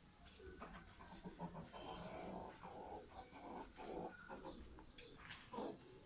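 Faint scattered calls from domestic birds and animals, with a few soft knocks.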